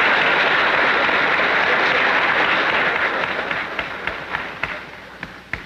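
Audience applauding: a steady patter of clapping that, about three seconds in, thins out into a few last scattered claps and dies away.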